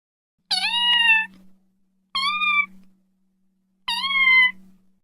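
A kitten meowing three times: short, high-pitched meows about a second and a half apart, the first the longest.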